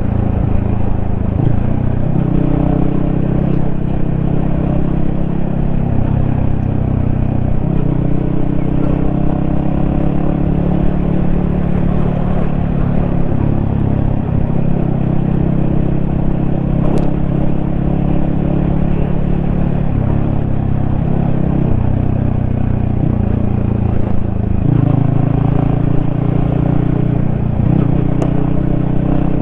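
Yamaha XSR155's single-cylinder engine running under way, its pitch holding steady for stretches and stepping up and down several times.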